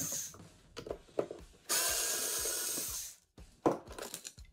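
Small handheld electric screwdriver backing out the breaker's top-cover screws: a run ends just after the start, then a second steady run of about a second and a half begins near the two-second mark. Several short clicks and knocks follow as the plastic cover is handled.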